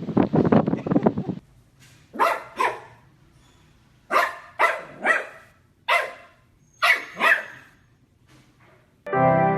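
A dog barking: about eight short, sharp barks, each rising in pitch, coming in twos and threes after a second or so of rough noise. Music starts near the end.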